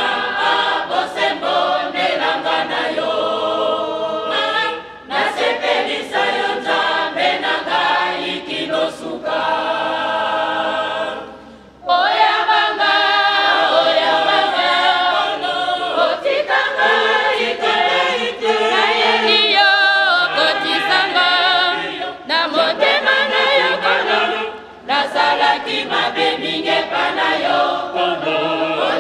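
A choir singing a cappella, in phrases with short breaks between them. The singing comes back louder after a brief pause about twelve seconds in.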